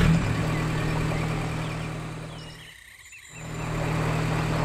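Engine of a cartoon safari jeep driving along, a steady low hum. It fades away from about two seconds in, nearly drops out around three seconds, then swells back up as the jeep returns.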